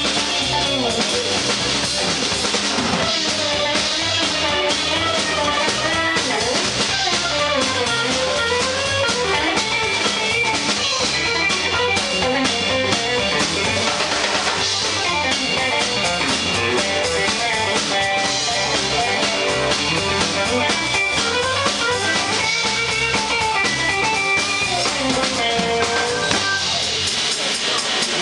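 Live jump-blues band: a Stratocaster-style electric guitar plays a solo of gliding, bent notes over drum kit and bass guitar. Near the end the bass drops away, leaving the drums.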